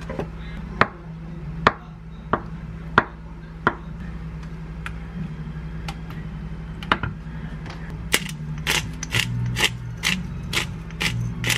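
A chef's knife cuts a block of tofu, with a few sharp knocks about a second apart in the first four seconds. Near the end comes a run of quick clicks from a pepper grinder being twisted over the tofu slices.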